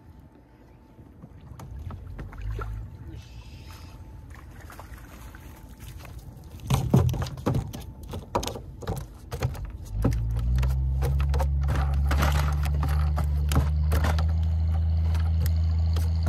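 A series of knocks and clatter, then about two-thirds of the way in a boat engine starts and runs steadily at a low, even idle.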